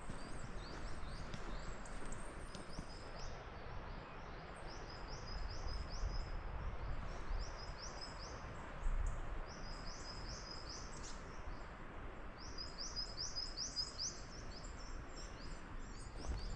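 A small songbird singing, repeating quick phrases of short high chirps, over a steady background hiss.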